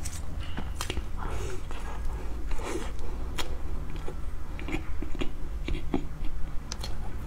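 Close-miked mouth sounds of a person biting and chewing a small soft cake, with many short wet clicks scattered through it.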